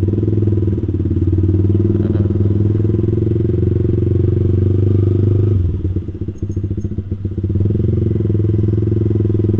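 Yamaha R15 V3's single-cylinder engine running through an R9 GP SS aftermarket racing exhaust while the bike is ridden slowly. The exhaust note drops off for a moment about six seconds in, then picks back up.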